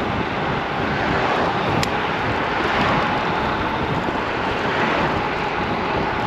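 Wind buffeting the microphone and road noise while riding a Solar FF Lite electric scooter at speed, a steady rushing with a faint steady tone underneath. A brief sharp tick about two seconds in.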